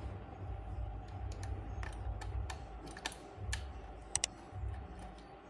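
Scattered small clicks and taps of hands and tools working on a ceiling fan's wiring, with a quick double click about four seconds in, over a low rumble.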